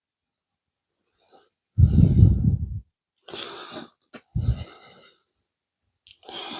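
A person breathing out heavily close to the microphone, several times, the first breath the loudest, with a small sharp click about four seconds in.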